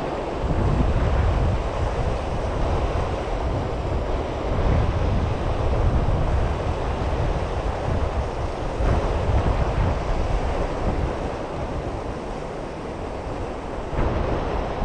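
Wind buffeting the microphone in gusts, a rough low rumble that rises and falls, over a steady wash of water.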